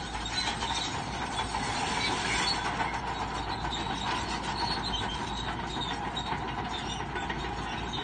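Crawler bulldozer at work, its engine running under a steady clatter of steel tracks and many small clanks.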